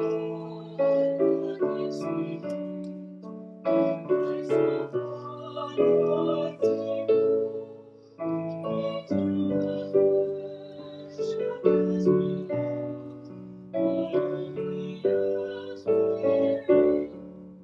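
Piano playing a slow hymn tune in chords. It moves in phrases of a few seconds, each ending on a chord that fades before the next begins.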